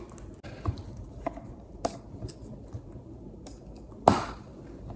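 Metal pylon tube and its clamp adapter being handled and fitted onto a prosthetic foot's adapter: a few light clicks, then one sharper knock about four seconds in.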